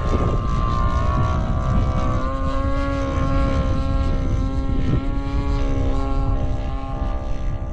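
Radio-controlled model airplane flying overhead: its motor and propeller give a steady whine made of several pitched tones, with a lower tone joining about two seconds in, over a heavy low rumble.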